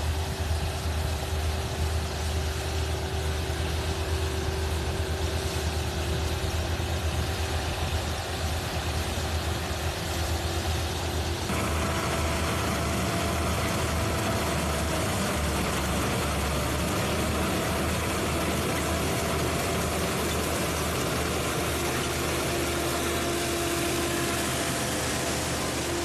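Farm machine engine running steadily with a low throb and a few steady higher tones. About eleven seconds in the sound changes abruptly, and a higher steady whine comes in.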